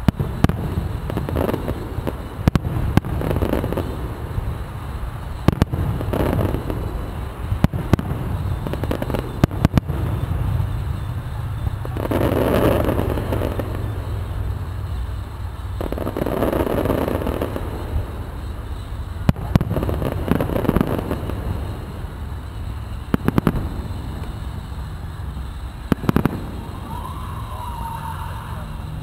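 Fireworks display: a string of sharp shell bursts, some in quick clusters, with a few longer rushing stretches, over a steady low rumble.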